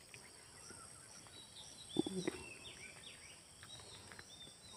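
Outdoor ambience of birds chirping, short sliding calls repeated again and again, over a steady high insect drone. A short low sound comes about two seconds in.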